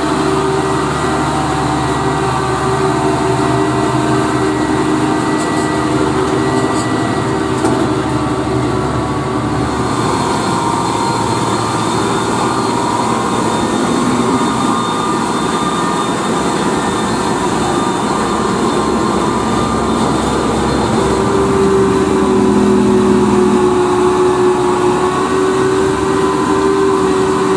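UD Quester tractor units' GH8E six-cylinder diesel engines (280 hp) running as loaded trucks pull past, one after another. The engine note is steady, changes about ten seconds in, and gets a little louder from about two-thirds of the way through.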